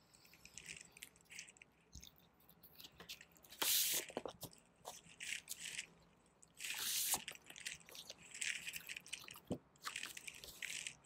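Crinkling plastic shrink wrap and rustling paper as a vinyl LP jacket is slit open and its printed paper inner sleeve is pulled out, with two louder rustles about three and a half and seven seconds in.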